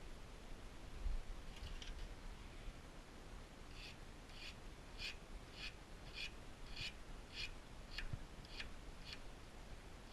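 Small hand file (a nail file) rasping in short strokes across a brazed carbide lathe tool bit, sharpening its edge: a steady run of about ten strokes, a little over half a second apart, after a couple of lighter strokes. A low thump about a second in.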